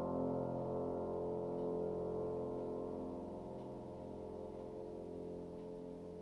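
Upright piano's closing chord held down and ringing, several notes fading slowly away with no new notes struck.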